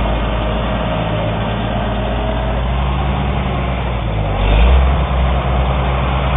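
Oliver 770 tractor's six-cylinder engine running steadily. About four and a half seconds in there is a brief swell of deeper rumble, as if it takes on load.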